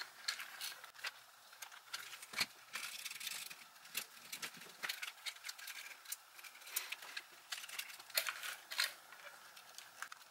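Hard plastic parts of a Furby being handled and pried apart by hand as the front shell comes off the mechanism: irregular small clicks, taps and scrapes.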